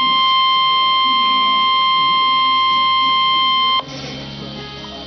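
Emergency alert warning tone of about 1050 Hz, the NOAA Weather Radio alarm tone: a single steady, slightly distorted beep that cuts off suddenly about four seconds in.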